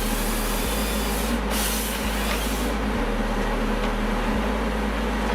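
Forestry harvester machine running with a steady hissing, noisy engine and hydraulic sound, over a low bass line of background music that changes note about every second.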